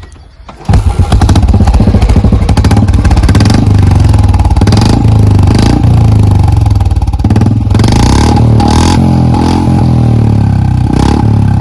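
Royal Enfield Bullet 350 BS6 single-cylinder engine with a stock bend pipe and an aftermarket Indori silencer. It comes in loud about a second in and keeps running, with several quick throttle revs. With the stock bend pipe the owner finds it a little subdued, though okay.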